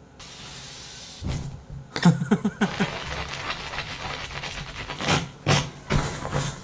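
Rustling and rubbing of a hand and a tissue wipe against a corgi's fur, with a brief low grumbling vocal sound about two seconds in.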